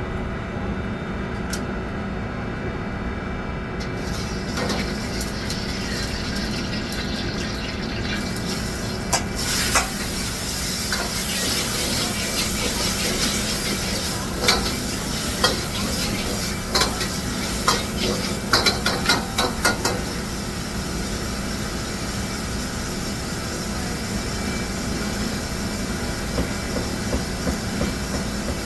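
Food sizzling in a hot pan while a metal utensil stirs it, with clanks and scrapes against the pan from about ten to twenty seconds in, over a steady low kitchen hum.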